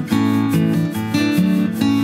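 Background music: acoustic guitar strummed in changing chords.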